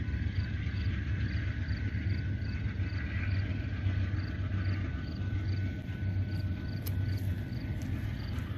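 Steady low rumble with a faint, high insect chirping that repeats evenly, about twice a second.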